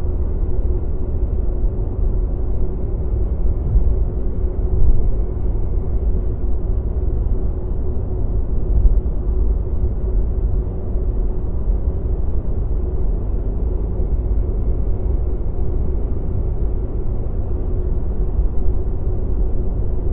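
Tunnel ambience: a steady, deep rumble with a faint constant hum running through it.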